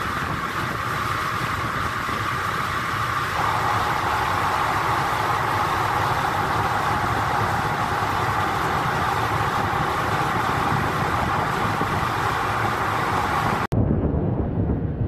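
Steady engine drone and rushing water from aboard a moving pilot boat, growing a little louder about three seconds in. Near the end it cuts off abruptly to gusty wind on the microphone.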